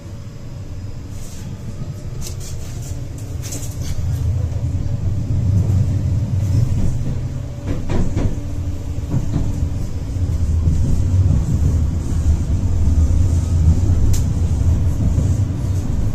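Tram running on its rails, heard from inside the car: a low rumble that grows louder over the first few seconds and then holds steady, with a few sharp clicks and knocks.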